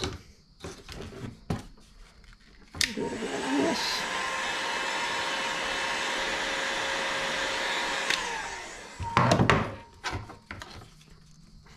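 An electric heat gun clicks on and blows steadily for about five seconds, heating a thin PVC strip to soften it for bending, then is switched off and winds down with a falling whine. A few loud knocks follow as it is set down and the strip is handled.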